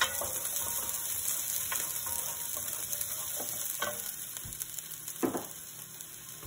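Diced bell pepper, onions and garlic sizzling in oil in an enameled pot, with a steady hiss. A wooden spoon stirs at the start, and a few sharp knocks sound through it, the loudest about five seconds in.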